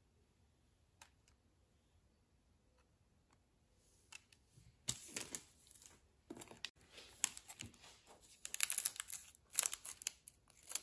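Foil wrapper of a Topps Opening Day baseball-card pack crinkling and tearing in the hands, in irregular bursts starting about four seconds in.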